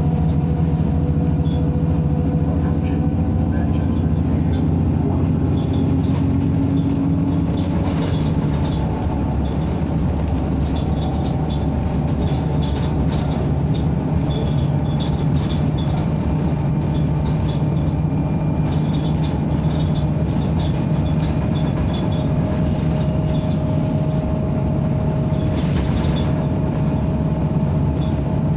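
Ride noise inside a NABI 45C-LFW city bus under way: a steady drone from the engine and driveline with road rumble, a faint whine that slowly drifts in pitch, and light intermittent rattles.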